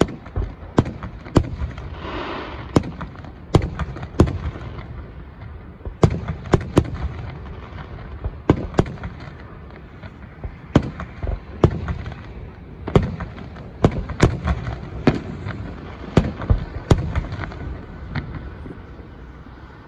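Aerial fireworks shells bursting in quick, irregular succession: sharp bangs with a low rumble rolling on between them, thinning out near the end.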